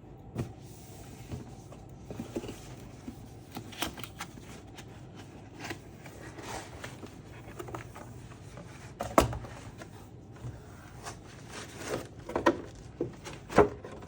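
Scattered, irregular clicks, taps and light knocks of a mechanical keyboard and its packaging being handled, with a sharper knock about nine seconds in and two more near the end.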